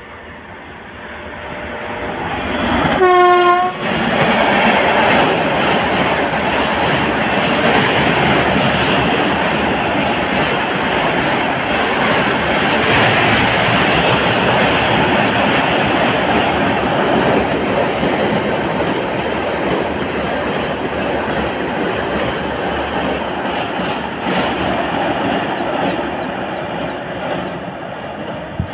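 Passenger train approaching and crossing a steel-girder river bridge. The noise builds for about three seconds, the locomotive's horn gives one short blast, and then the wheels and coaches keep up a long, steady rumble and clatter over the bridge that eases slightly near the end.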